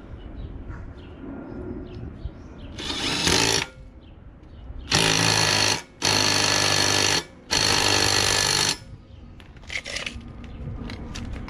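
Cordless impact wrench hammering on a push mower's blade bolt, tightening the blade onto its adapter. There is one short burst, then three long bursts with brief pauses, then a short final burst.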